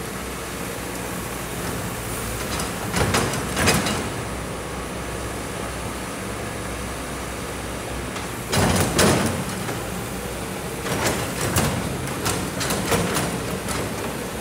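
Kobelco hydraulic excavator's diesel engine running steadily, with several louder bursts of scraping and grinding as the bucket digs into sand and stones.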